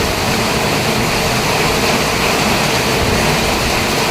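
Steady rushing noise of a vehicle on the move, with no separate knocks or changes.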